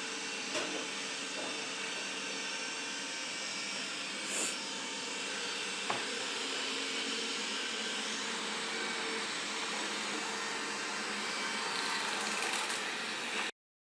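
Roborock E4 robot vacuum running: the steady whirring hiss of its suction fan over a faint hum, with a couple of light clicks as it moves. The sound cuts off suddenly near the end.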